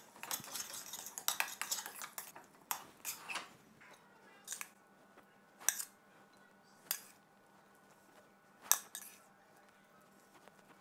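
A metal spoon stirring and scraping thick risotto in a stainless steel pot, a dense run of scrapes and clicks for about four seconds. Then a few separate sharp clinks of a metal utensil against a ceramic plate as the risotto is served.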